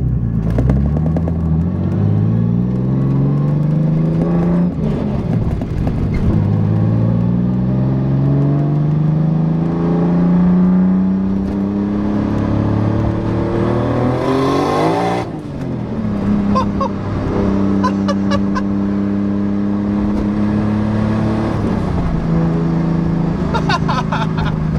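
Toyota 2JZ inline-six swapped into a Nissan 300ZX, heard from inside the cabin, accelerating hard through the gears at about three-quarter throttle. The engine note climbs and drops at a shift about five seconds in, then climbs again. After a brief hiss and a shift about fifteen seconds in, it settles to a steady cruise.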